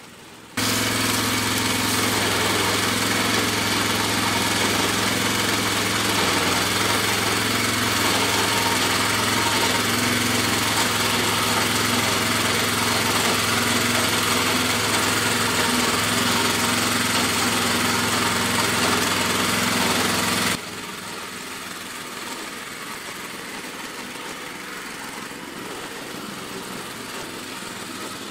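Small gasoline engine of a red rear-tine rototiller running steadily as it churns dry soil, close and loud. About two-thirds of the way through it drops suddenly in level and carries on quieter.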